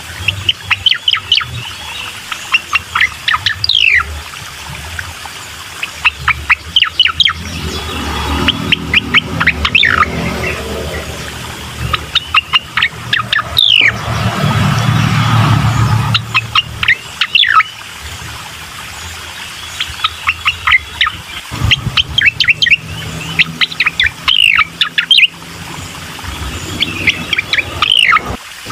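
Cucak koreng song: rapid runs of sharp, high chirps and trills, repeated in short phrases every second or so. A low rumble swells under the song around the middle.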